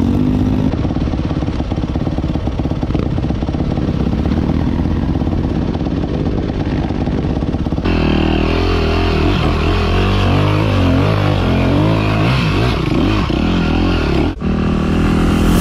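Dirt bike engines running while riders cross a shallow river. From about eight seconds in, a close dirt bike engine revs up and down as it wades through the water, with splashing, and there is a sudden break near the end.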